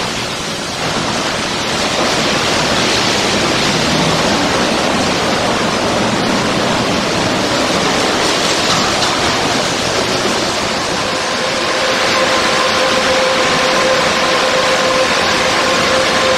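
Belanger InstaKleen automatic car wash running: a steady rush of water spray and spinning wash brushes working over a car. About eleven seconds in, a steady machine hum joins the rush.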